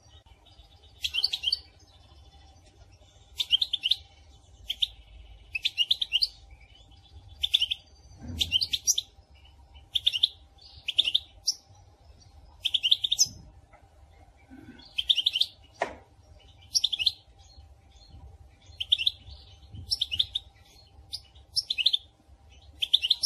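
Female European goldfinch calling: short twittering bursts of high chirps, repeated about every one to two seconds, the kind of call played to stir a male goldfinch into song.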